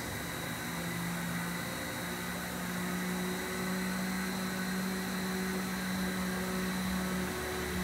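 Steady background hum and hiss of a shop room. A low steady tone joins about a second in and breaks off briefly a few times.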